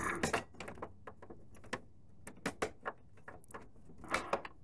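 Plastic fairing panel on a Kawasaki Ninja 300 being pushed and worked by hand to seat its tabs: scattered clicks and knocks of plastic against plastic. They are loudest right at the start and again about four seconds in.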